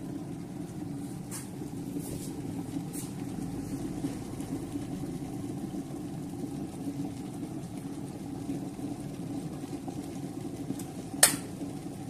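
Electric kettle heating water towards the boil: a steady low rumble from the water, with a single sharp click near the end.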